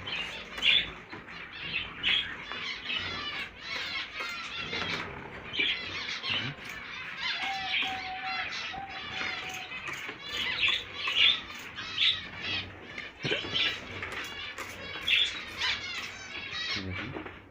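A crowd of small caged birds chirping and squawking continuously, many short, quick calls overlapping.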